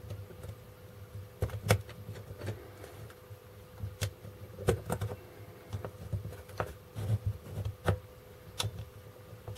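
Small plastic parts of a desoldering gun's housing clicking and tapping as they are handled and fitted together by hand, irregularly spaced clicks over a faint steady hum.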